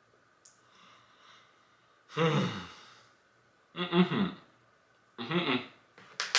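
A man's muffled, wordless voice, three short hums or grunts through a mouth packed with jellybeans, followed by two sharp clicks at the very end.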